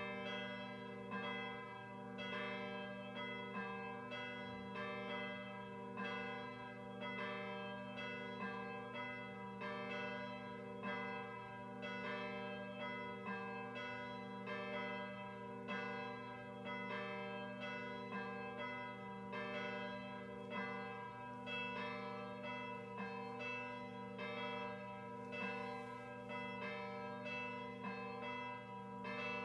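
Schulmerich Basilican Mark III DSP electronic carillon playing its weekday mass call: sampled peal of two swinging cast bells, striking in a steady, overlapping swinging rhythm with a long ringing hum between strokes, reproduced through the system's speaker.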